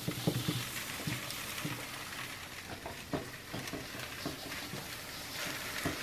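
Ingredients being stirred and mixed by hand in a pot: a steady hissing rustle with scattered soft knocks against the pot.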